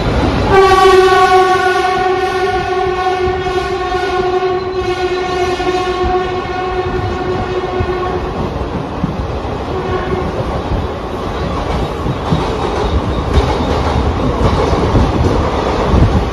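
Mumbai suburban electric local train's horn sounding one long steady blast of about seven and a half seconds, starting about half a second in. Under it, and on after it stops, the rumble and clickety-clack of a train running on the rails.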